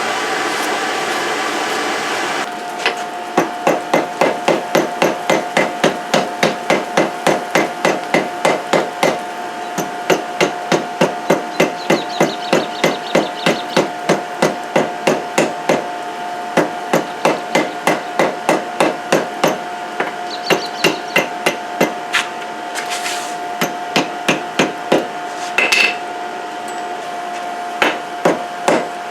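Hand hammer striking hot steel on an anvil, a steady run of about three blows a second with short pauses, compressing and forge-welding a billet of chainsaw chain. A steady hum from the coal forge's blower runs for the first couple of seconds before the hammering starts.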